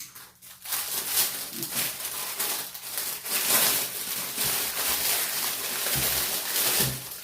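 Rustling and crinkling of packaging being handled and unwrapped, a dense crackly rustle that goes on for several seconds.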